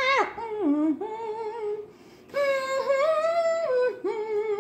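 A woman singing wordlessly in a high voice, holding long notes that bend up and down. The notes come in three phrases, with short breaks a little before two seconds in and at about four seconds.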